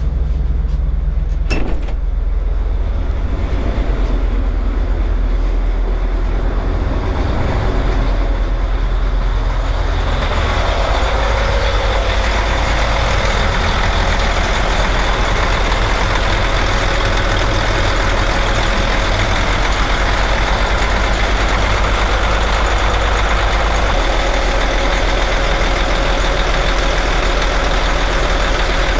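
Twin Caterpillar marine diesel engines running steadily at a high idle of about 1,000 rpm, with a low, dull note. About ten seconds in the engine sound grows much fuller and louder, heard close up inside the engine room; a single sharp click comes about a second and a half in.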